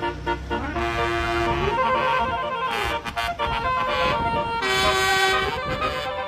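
Basuri telolet horn, a multi-tone musical vehicle horn, playing a tune of held notes that step up and down in pitch.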